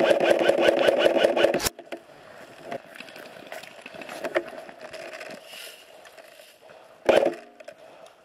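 Airsoft electric gun (AEG) firing a full-auto burst: a fast, even rattle of shots over the gearbox motor's whir, which cuts off abruptly under two seconds in. A short, loud sound follows about seven seconds in.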